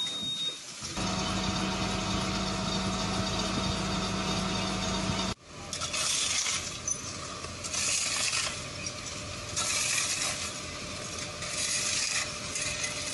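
A steady machine hum with a low held tone that cuts off abruptly about five seconds in. It is followed by shovels scraping up broken glass and rubble from pavement, one gritty scrape about every two seconds.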